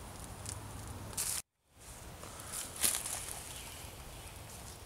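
Quiet woodland ambience with light rustling in dry leaves and one sharper rustle or snap about three seconds in. The sound cuts out completely for a moment about a second and a half in.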